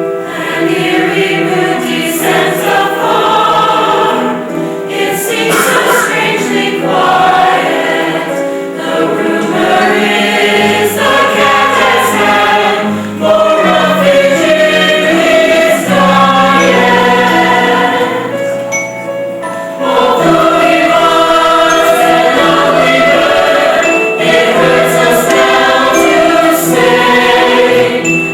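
A stage-musical cast singing together as a choir in a slow song, with instrumental accompaniment under the voices. It swells louder about two-thirds of the way through.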